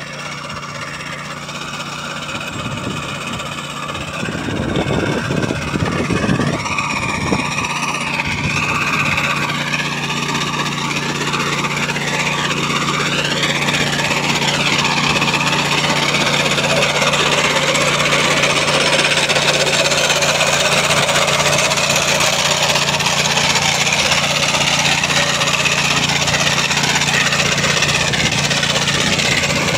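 Small engine of a walk-behind sod cutter running steadily as the machine cuts turf, growing louder over the first several seconds as it comes closer, then holding steady.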